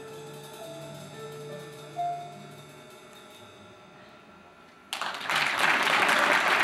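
A live band's last soft held notes fading away, then audience applause breaking out suddenly about five seconds in and becoming the loudest sound.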